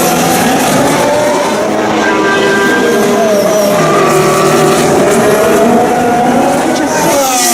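2016 Formula 1 cars' 1.6-litre turbocharged V6 engines running at speed, several overlapping, their pitch rising and falling with throttle and gear changes. One drops sharply in pitch near the end.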